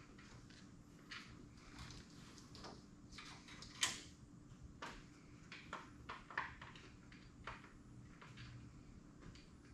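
Faint, scattered clicks and light knocks of metal parts and tools being handled around an engine bay, the sharpest about four seconds in, over a low steady hum.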